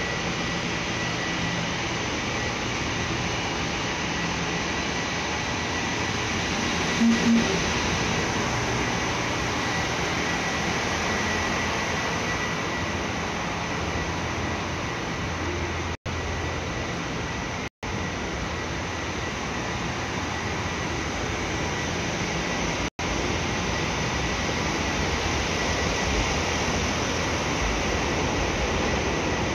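JR Hokkaido diesel express railcars idling at a station platform: a steady diesel rumble and hum. Two short low tones sound about seven seconds in.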